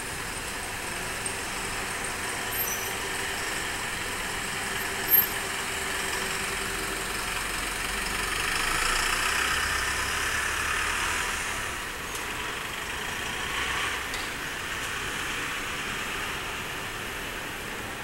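Street traffic with a truck driving past, swelling in the middle and fading again. A single brief sharp sound stands out about five seconds in.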